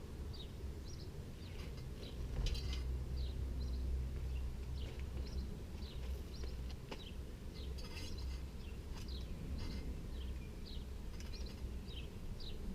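A small bird chirping over and over, short high chirps a few times a second, over a low steady rumble, with a few faint clicks.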